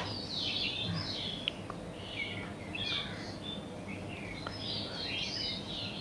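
Small birds chirping, many short overlapping calls, over faint steady background noise.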